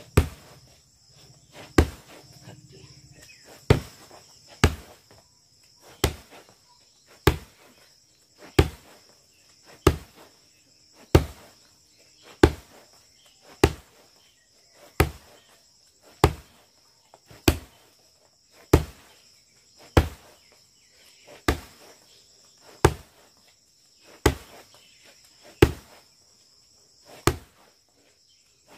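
Repeated roundhouse kicks (mawashi geri) striking a padded kick bag strapped to a tree trunk, a sharp impact about every 1.3 seconds, about twenty in all.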